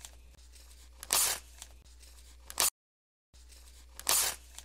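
Short bursts of hissing noise, three times, over a faint low hum, with a brief cut to dead silence a little past the middle.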